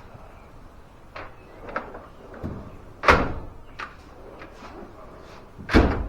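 A run of light clicks and knocks with two louder thumps, one about three seconds in and one near the end, like things being handled and set down or a door or lid shutting.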